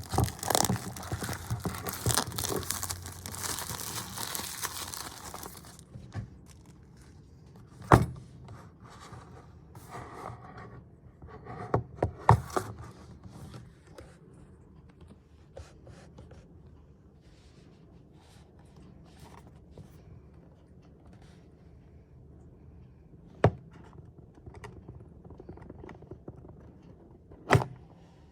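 Packaging being opened: about six seconds of crinkling and tearing, then scattered light clicks and scrapes of the box and its contents being handled, with four sharp thunks spread through.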